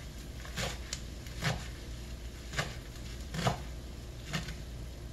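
Chef's knife chopping through a bunch of kale and turnip greens on a wooden cutting board: about five separate cuts, roughly one a second.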